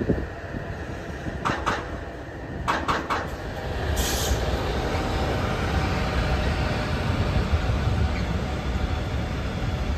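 A train running on rails, with a steady rumble. A few sharp clacks come about one and a half and three seconds in, and the rumble grows louder from about four seconds in.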